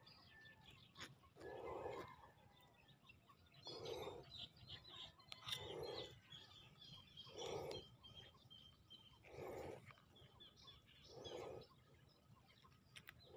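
Faint bird chirps over near silence, with a soft low sound repeating about every two seconds.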